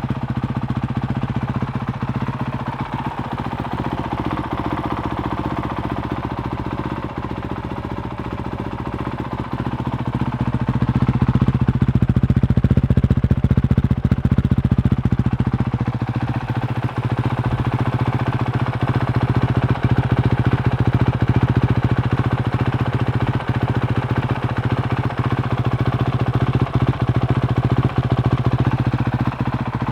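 Honda CRF450L's single-cylinder engine running at idle, getting louder from about eleven seconds in.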